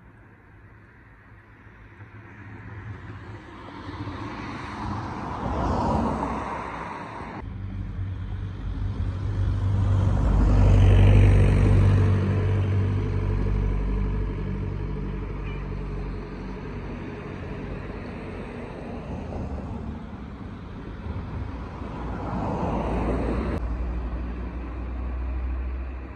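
Motor vehicle traffic: car engine and road noise that swells and fades several times as vehicles pass, loudest about a third of the way in. The sound changes abruptly twice where clips are joined.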